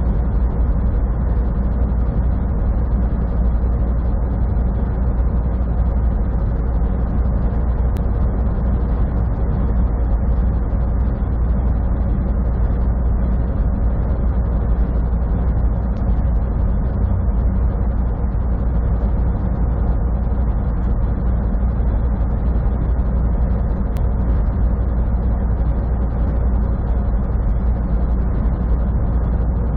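Steady low drone of a semi truck cruising at highway speed, its diesel engine and tyre and road noise heard from inside the cab.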